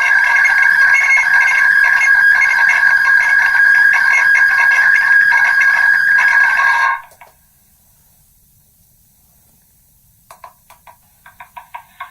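Megaphone playing back a recording that has been re-recorded from one megaphone to another many times, the spoken words eroded into a loud, steady ringing drone of a few pitches. It cuts off suddenly about seven seconds in. After a short quiet, sharp clicks start near the end and come faster.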